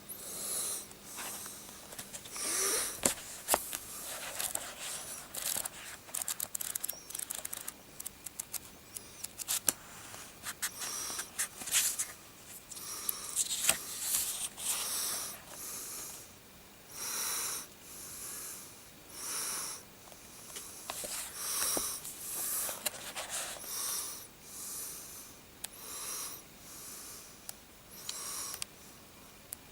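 Heavy, exaggerated breathing close to the microphone: a long series of loud breaths, one every one to two seconds, with scattered sharp clicks between them.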